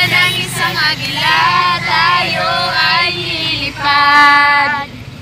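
Several women's voices singing loudly together, ending in a long held note about four seconds in, over the steady hum of the vehicle's engine.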